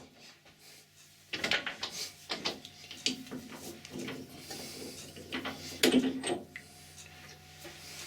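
Metal clunks, clicks and scrapes of a lathe collet chuck being loosened by hand to release a knurled workpiece, the loudest knock about six seconds in, over a faint steady low hum.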